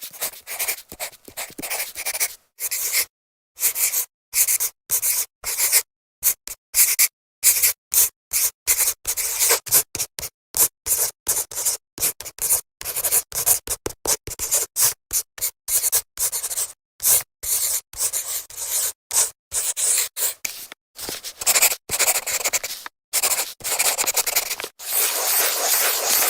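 Marker pen drawing on a whiteboard: a fast run of short scratchy strokes with brief gaps between them, turning into longer, more continuous strokes near the end.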